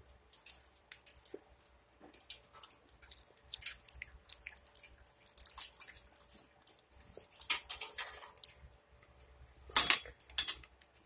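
Biting and chewing an Oreo ice cream bar close to the microphone, ASMR-style: scattered crunches and mouth sounds, with the loudest two bites about ten seconds in.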